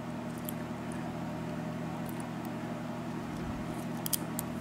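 Steady low electrical-sounding hum with a few faint light clicks about four seconds in, as small lock pins and tools are handled.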